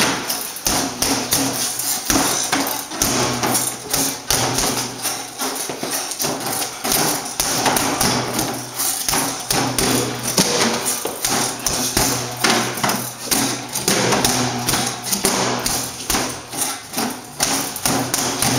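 Boxing gloves pounding a freestanding reflex bag with heavy jabs: a quick, uneven run of thuds and knocks, several a second, as the bag whips on its spring stem and rocks on its weighted base.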